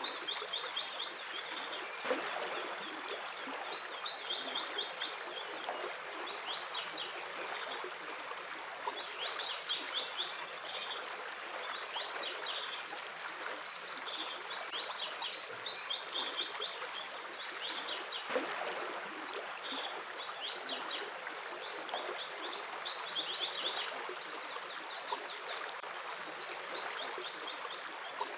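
Water running steadily in a stream, with small birds chirping over it in quick runs of high notes that repeat every second or two.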